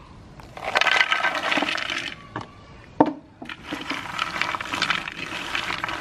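Crunchy fried diamond cookies clattering and rattling onto a ceramic plate, a dense crackly clatter in two spells as they are tipped out and then spread by hand. A single sharp knock comes about halfway through.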